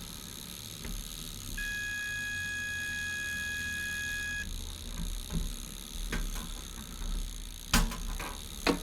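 Multimeter continuity beeper giving one steady high beep for about three seconds, then cutting off abruptly: the probes are across a closed circuit. A few short knocks and clicks of handling follow, the loudest near the end.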